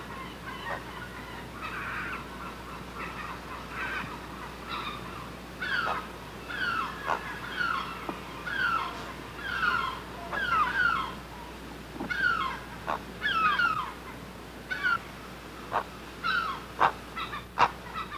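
Great blue herons squawking at the nest: a run of short, harsh calls, each falling in pitch, coming in quick series, with a few sharp clicks near the end.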